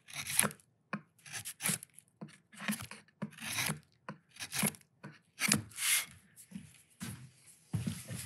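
A freshly waterstone-sharpened bench chisel, pushed by hand, paring shavings off the end of a softwood stick: about a dozen short scraping, slicing strokes, roughly one and a half a second. The edge bites well and very consistently.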